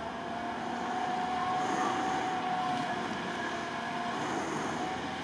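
UAZ-469 off-roader's engine running steadily under load as it crawls through a deep bog, its pitch wavering slightly.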